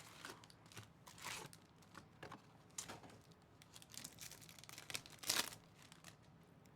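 Faint crinkling and rustling of a Topps Chrome Jumbo card pack's foil wrapper and its cards being handled, in short irregular strokes, two of them louder.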